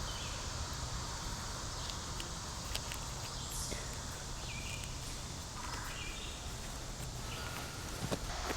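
Outdoor ambience: a steady low background noise with a few faint, short high chirps and some light clicks.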